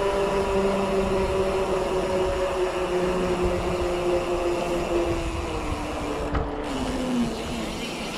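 Mountain bike rolling on a paved path: a steady hum from the wheels, made of a few pitches, that slowly drops in pitch toward the end, over a low rumble of wind and road noise.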